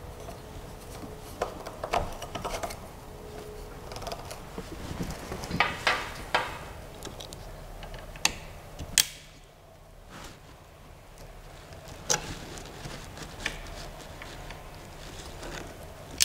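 Handling noise from assembling a 3D printer: scattered clicks, taps and small knocks of metal and plastic parts, the sharpest about nine seconds in.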